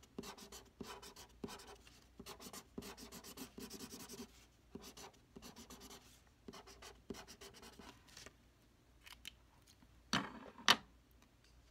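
Felt-tip marker scribbling on paper in many quick short strokes, filling in a drawing. Near the end, after a pause, a couple of louder sharp taps from handling the paper or setting the marker down.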